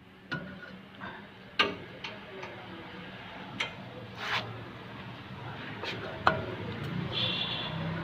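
Scattered light metallic clicks and knocks, about one a second, as a new brake rotor and hub assembly is worked onto a Mahindra Scorpio's front spindle by hand.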